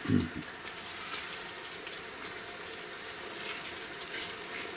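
Wet prawn masala bubbling over a high flame in a non-stick pot, its liquid being cooked off, with a few light scrapes of a silicone spatula stirring it.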